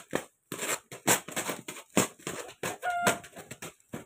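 A duck and a hen fighting: quick, repeated wing flaps and scuffling, with a short cluck about three seconds in.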